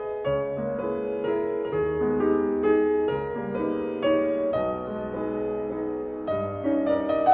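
Piano music, single notes and chords struck one after another at a moderate pace.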